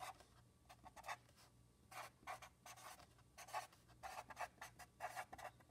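Sharpie permanent marker writing on paper: a faint, irregular run of short scratchy strokes as letters are formed.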